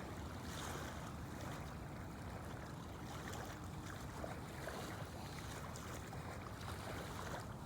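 Water lapping and splashing faintly over a steady low wind rumble on the microphone.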